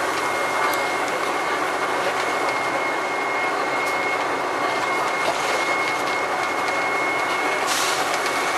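Bus engine and drivetrain running at steady cruising speed, heard from the rear of the bus near the engine, with road noise and a steady high whine. A brief hiss comes near the end.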